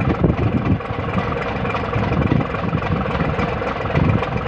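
Tugboat's diesel engine running steadily, a continuous low drone with an uneven low rumble.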